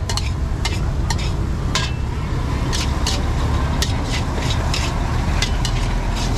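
Metal spatulas clinking and scraping against large woks as fried rice is stirred and tossed, in irregular strokes two or three a second, over a steady low rumble.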